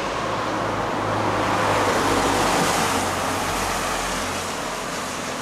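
Road traffic beside the street: a steady engine hum under tyre noise, swelling about halfway through as a vehicle passes and easing off toward the end.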